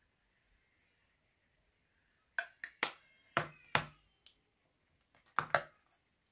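A series of sharp clicks and knocks, about five in the middle and two close together near the end, each with a brief ring: hard make-up cases and tools being handled and set down, between applying setting powder and picking up a highlighter.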